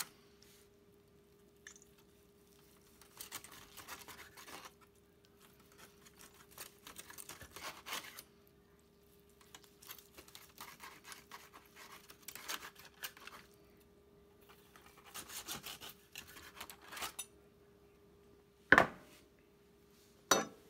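A large chef's knife sawing through a crusted roast tri-tip in four bouts of back-and-forth strokes, the blade scraping and the aluminium foil under the meat crinkling. Two sharp knocks near the end, the first the loudest sound of all.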